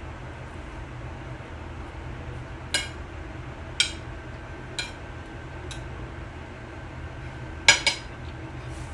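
A utensil clinking against dishes: single light clinks about once a second, then a quick double clink near the end, over a steady low hum.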